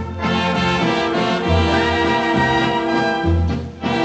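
Dance orchestra with brass playing an instrumental passage of a waltz, from a 78 rpm shellac record, with a low bass note about every two seconds; the music dips briefly near the end.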